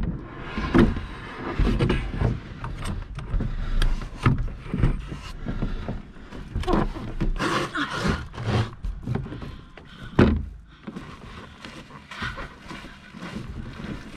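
Irregular knocks, scrapes and rustles as a light solo canoe is handled off a car roof and settled onto a pack frame, with a sharper knock about ten seconds in.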